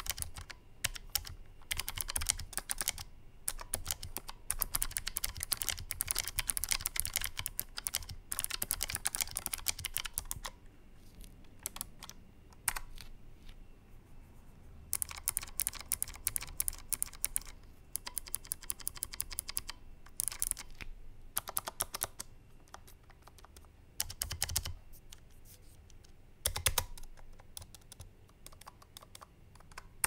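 Typing on a Keychron K1 slim mechanical keyboard with low-profile clicky switches, whose small click piece gives a dull, relatively quiet click rather than a sharp one. Fast continuous typing for about ten seconds, then shorter bursts of keystrokes with pauses between them.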